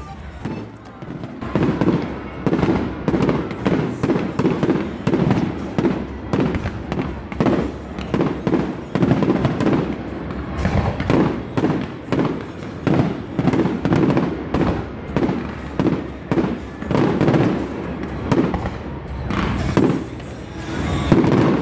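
Fireworks finale going off: a rapid, unbroken run of bangs and pops from aerial shells and ground fountains, a few a second.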